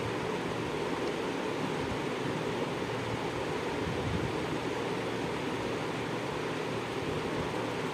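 Minced mutton simmering in water in an aluminium kadai over medium heat, giving a steady, even bubbling hiss.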